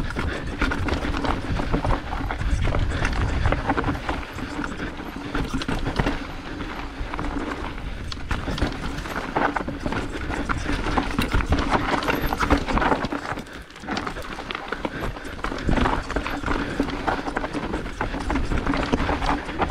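Mountain bike riding over rough singletrack: a continuous clatter of tyres, chain and suspension over roots and rocks, easing briefly about two-thirds of the way through.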